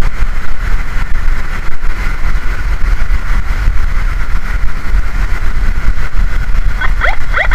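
Ambulance on the move, its engine and road noise a steady low rumble. Near the end its siren switches on in a fast yelp: quick rising sweeps, about five a second.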